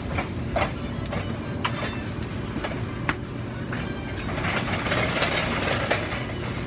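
Supermarket background noise: a steady low rumble with scattered sharp clicks and rattles, and a stretch of louder hiss from about four and a half to six seconds in.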